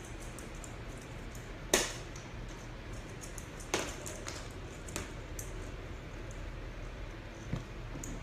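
A puppy playing with a tennis-ball toy on a hardwood floor: a few sharp knocks as the toy strikes the floor, the loudest about two seconds in, with light clicks between them.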